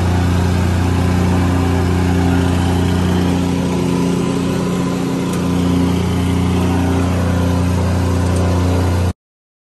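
Gas-engine plate compactor running steadily as it is walked over the leveled ground, compacting the base. It cuts off suddenly near the end.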